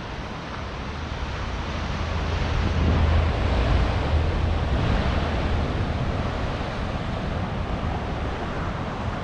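Pacific Ocean surf washing on the shore, a wash of noise that swells to a peak about three seconds in and then eases off, with wind rumbling on the microphone.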